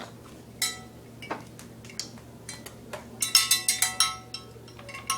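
A small handbell shaken and struck unevenly by a baby: scattered single dings, each ringing on briefly, then a quick flurry of rings about three seconds in.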